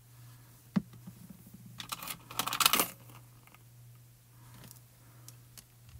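A sharp knock about a second in, as a plastic glue bottle is set down on a glass crafting mat, then about a second of quick small clicks and clatter from hard craft tools being handled, with a few faint ticks after.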